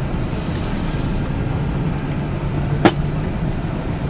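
Car engine running with a steady low hum and rumble, heard from inside the cabin. A single sharp click just under three seconds in.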